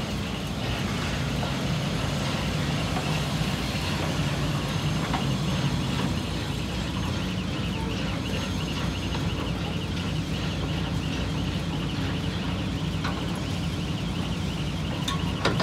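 Large diesel engine of a crawler crane running steadily at idle, a constant low hum. A repeating high-pitched chirp runs over it.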